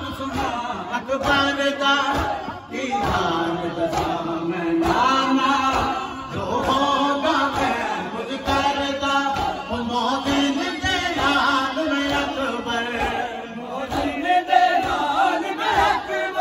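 Noha, a Shia lament, chanted by a male reciter over a microphone and PA, with a group of men chanting along in unison. A regular thumping beat runs underneath, the sound of matam, rhythmic chest-beating.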